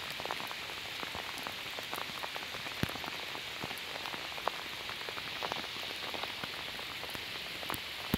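Steady rain hissing, with scattered close drops ticking irregularly, two louder ones about three and four and a half seconds in.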